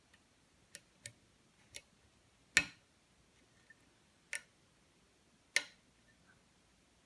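Sharp metallic clicks from a custom pin-tumbler challenge lock being picked, as the pick works the pins and they click. There are six clicks at uneven intervals, the loudest about two and a half seconds in.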